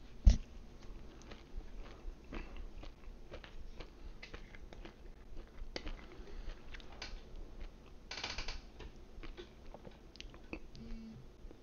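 Close-up chewing of pizza: mouth clicks and small crunches. There is one loud bump just after the start, and a short rasp about eight seconds in as the cap of a small glass bottle is twisted.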